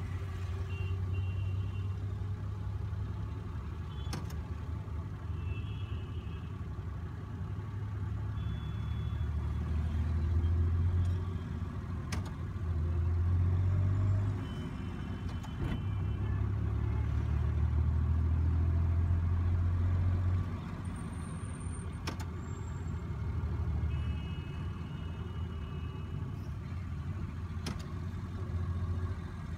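Car cabin noise in slow, heavy traffic: a low engine and road rumble that swells and eases several times as the car moves off and slows. Short high-pitched beeps from other vehicles' horns come now and then.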